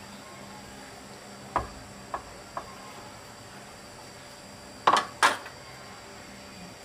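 Tableware being handled at a meal: three light clicks, then two louder knocks of dishes or utensils about five seconds in, over a steady high-pitched insect drone.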